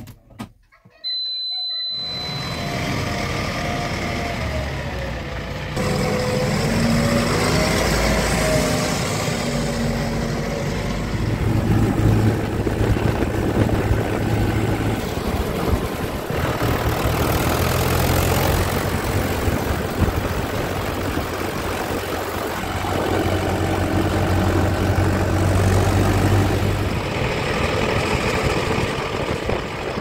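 Tractor diesel engine started with the key, catching about two seconds in, then running steadily as the tractor drives, a little louder after about six seconds.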